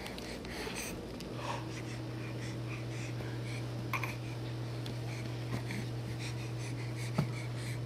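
A baby breathing softly and snuffling close to the microphone, over a low steady hum that comes in about a second in, with a couple of light knocks, the sharper one near the end.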